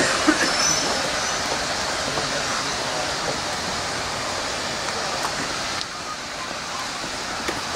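BR Standard Class 5 4-6-0 steam locomotive No. 73129 letting off steam: a steady hiss with no exhaust beats, dropping a little about six seconds in.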